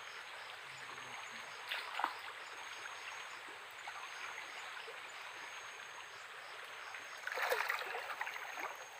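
Shallow stream water flowing with a steady rush. There are a few small splashes about two seconds in, and a louder burst of splashing about seven and a half seconds in as a person wades through the water.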